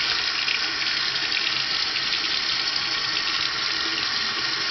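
Bathroom sink faucet running steadily, the water splashing into the basin and over makeup brushes being rinsed by hand.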